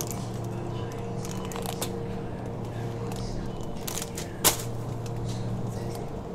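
Plastic packaging of bagged vegetables crinkling and rustling as it is handled, over the steady electrical hum of a shop's refrigerated display cabinets. One sharp knock comes about four and a half seconds in.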